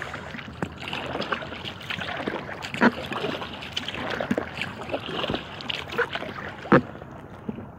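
Kayak paddle strokes in calm lake water: the blades dipping and splashing, with water trickling off them. Two louder splashes stand out, about three seconds in and near the end.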